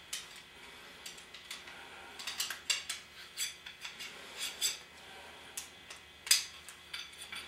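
Light metallic clicks and clinks at irregular intervals, one a little louder about six seconds in, as a short metal tube is set into a small tubing cutter and the cutter's knurled feed knob is turned.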